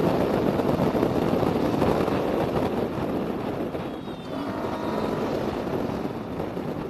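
Yamaha R15 V3's single-cylinder engine running at speed in fifth gear, mixed with heavy wind rush on the microphone. It eases off about halfway through as the bike slows.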